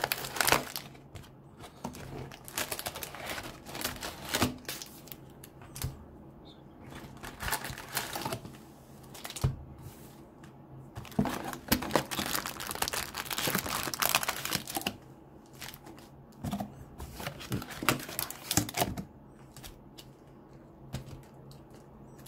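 Wrapped trading-card packs crinkling and rustling as they are pulled by hand out of a cardboard booster box, in irregular bursts with short pauses.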